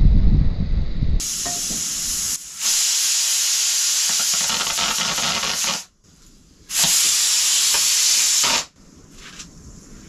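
A loud, steady hiss in two stretches: the first runs about four and a half seconds, and the second, after a brief gap, about two seconds. Each starts and stops abruptly.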